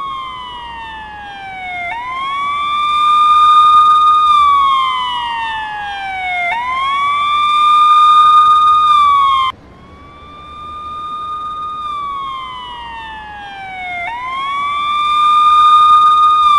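Police siren in a slow electronic wail: the pitch climbs quickly, holds high for about two seconds, then slides slowly down, the cycle repeating about every four to five seconds. About halfway through it drops sharply in level, then builds again.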